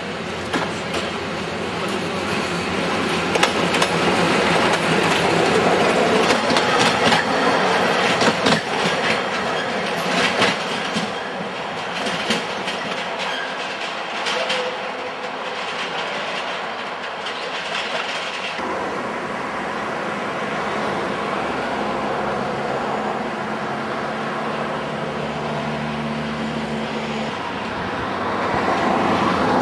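A TU7 narrow-gauge diesel locomotive and its passenger coaches passing close by, the wheels clicking over the rail joints in a long run of irregular clacks. About two thirds of the way in, the sound switches abruptly to a steadier, duller running hum from further off, which swells near the end.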